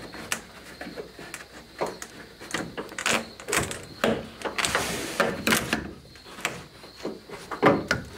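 Plastic interior pillar trim being handled and pushed into place against the headliner: a string of irregular clicks and knocks, a brief scraping rustle about five seconds in, and a sharper knock near the end.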